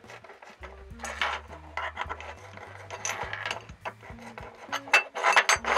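Hand-held countersink bit in a screwdriver handle scraping the burr off drilled holes in aluminium angle, in three bouts of twisting strokes; the last, near the end, is the loudest.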